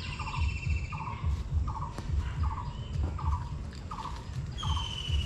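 A bird calling one short note over and over, evenly a little more than once a second. Other birds give brief whistles at the start and near the end.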